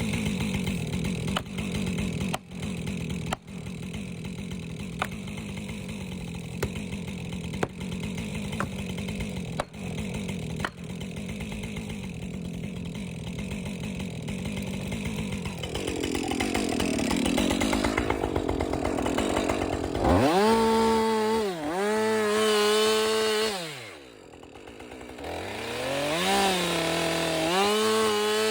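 Gas chainsaw working into a tree trunk, its engine running low and rough under load. About 20 seconds in it revs up to a high, steady pitch, drops back briefly, then revs up again.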